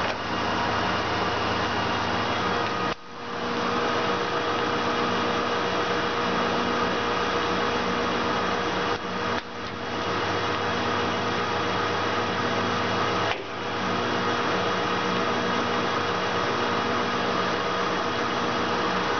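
LeBlond Makino 19 x 54 inch engine lathe running, a steady mechanical hum with a few steady whining tones from its gearing. The sound dips briefly three times, about three, nine and thirteen seconds in.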